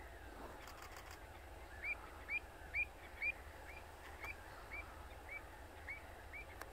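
A bird calling in a regular series of short, clear, hooked notes, about two a second, starting about two seconds in; the first few notes are the loudest.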